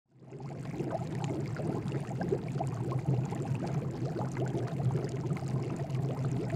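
Steady background room noise: a low hum with scattered small clicks and rustles, fading in at the very start.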